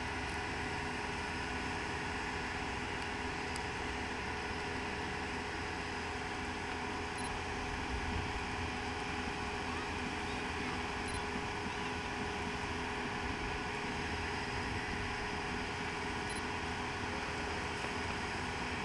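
Machinery running steadily, a constant hum with several fixed tones that does not change in pitch or level.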